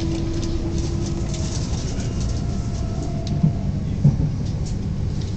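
Electric multiple-unit train in motion, heard from inside the carriage: a steady low rumble of wheels on rail with a faint humming tone, and two brief knocks about three and a half and four seconds in.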